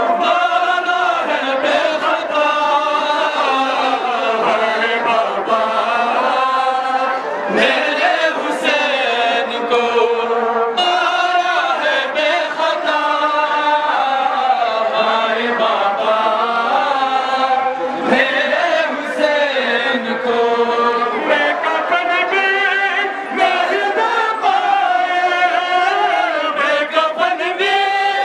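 A noha, the Shia mourning lament for Ashura, chanted by male voices, with the crowd's voices blending into a choir-like unison chant.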